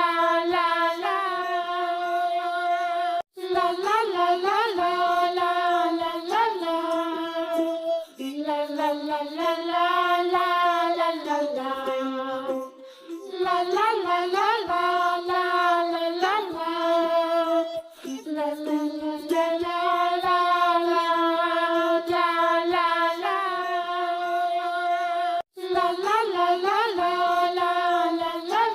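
Background song: a child-like voice singing a melody in long held notes, with no words picked out.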